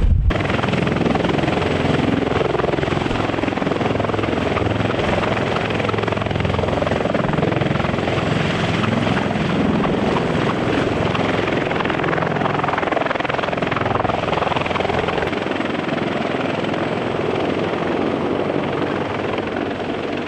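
Sikorsky CH-53E Super Stallion heavy-lift helicopter in a hover and lift-off with an underslung load: steady rotor and triple turboshaft engine noise, easing off slightly near the end as it moves away.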